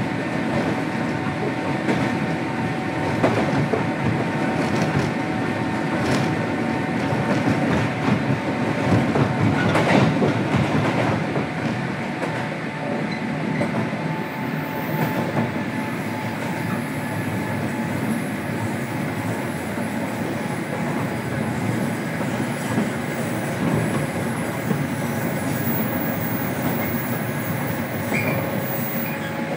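JR Kyushu 103 series electric train heard from inside a motor car while running: steady wheel, gear and traction-motor noise. A few rail-joint knocks come in the first half, loudest about ten seconds in.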